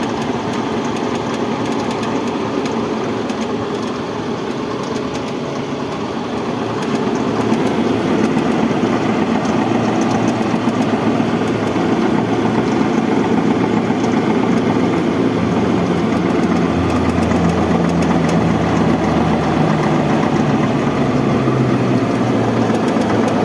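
Toyota Hiace minibus engine idling with its electric radiator fan motor running: a steady mechanical noise that grows louder about seven seconds in.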